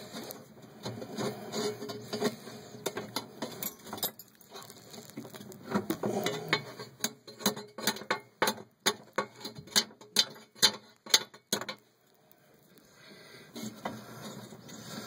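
Irregular metallic clicks, taps and rattles of tools and hands working at a cast-iron fireplace damper, prying at a stuck cotter pin. The clicks quicken into a fast run of sharp knocks past the middle, then stop abruptly.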